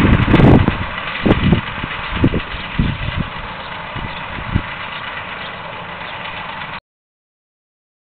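Tractor and New Holland combi baler running at work, a steady distant machine hum, with wind buffeting the microphone, heavily in the first second and in a few single gusts after. The sound cuts off abruptly near the end.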